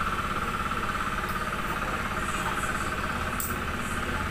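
Insect chirring: a steady, fast-pulsing high trill that runs on without a break, over a low steady hum, with a few faint clicks.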